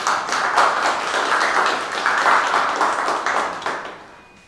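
Audience applauding, a dense run of hand claps that dies away about four seconds in.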